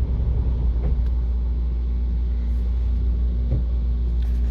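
VW Amarok 2.0 TDI diesel engine running steadily with a low rumble, held in fifth gear against the pulled handbrake as a clutch-slip test. The newly replaced clutch holds without slipping.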